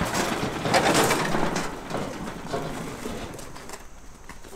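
John Deere lawn tractor being pushed down a trailer ramp: its tyres roll and scrape over the wooden deck and steel ramp. The noise is loudest in the first two seconds, then fades.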